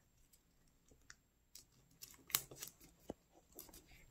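Origami paper being folded and creased by fingers: faint rustling with scattered small ticks, a few sharper ones in the second half.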